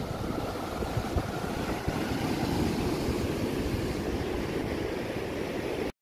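Surf breaking offshore and washing up a sandy beach, with wind buffeting the microphone; it cuts off suddenly at the very end.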